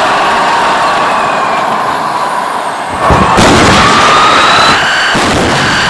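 Battle sound effect: a steady rushing noise with faint whistling tones, and a louder blast like artillery fire about three seconds in.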